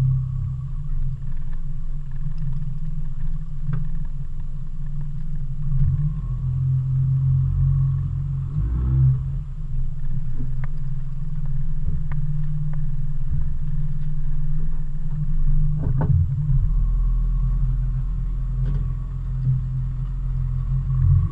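Boat's outboard motor running at low speed with a steady rumble, plus a few light knocks.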